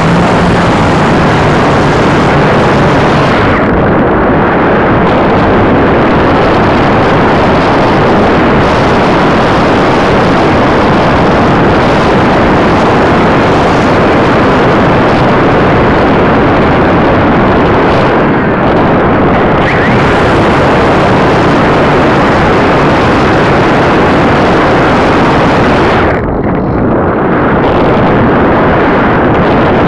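Loud, steady rush of air buffeting the microphone of a small camera carried on a radio-controlled glider in flight. The hiss thins out briefly a few times, most clearly near the end.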